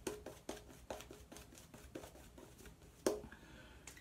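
Shaving brush working soap lather onto the face in quick, wet swishing strokes, about four a second, with one louder stroke a little after three seconds in.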